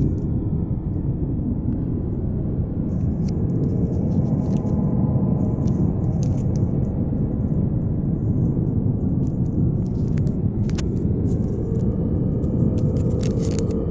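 Steady low rumbling noise with scattered faint crackles and clicks.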